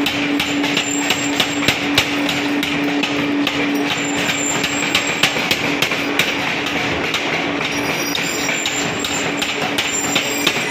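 Mechanical power hammer forging red-hot steel: rapid, evenly repeated blows of the ram on the workpiece and anvil over a steady machine hum.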